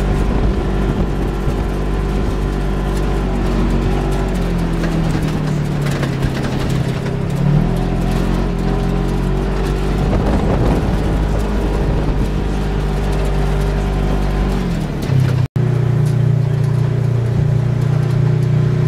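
Polaris RZR side-by-side UTV engine running while driving over gravel, its note rising and falling with the throttle, with tyre and gravel noise beneath. About fifteen seconds in the sound breaks off for an instant and resumes with a steadier note.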